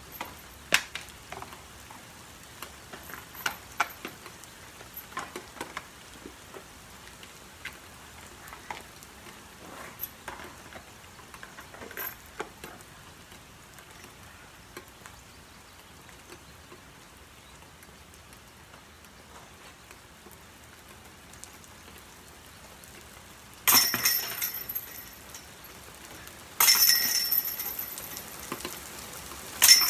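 Metal chains of a disc golf basket jangling loudly three times, about three seconds apart, as thrown discs strike them, each jangle dying away over a second or two. Earlier come scattered light clinks of discs being handled and lifted out of the basket.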